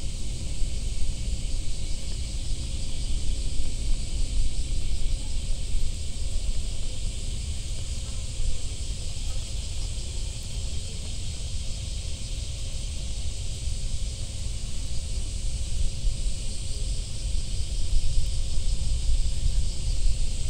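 Outdoor ambience: a steady low wind rumble on the microphone under a constant high-pitched drone of insects.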